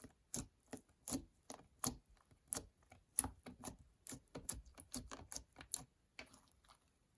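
Slime being squeezed and worked by hand, giving a quick series of sharp wet clicks and pops, about three or four a second, that stops near the end.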